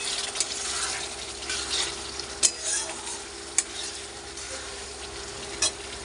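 Thick fish curry masala sizzling in a metal kadai as a spatula stirs and scrapes through it, with three sharp clicks of the spatula striking the pan.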